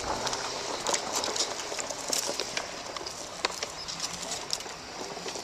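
Irregular crunches and ticks over a steady hiss: footsteps and off-road Segway tyres moving over dry dirt, twigs and litter on a trail.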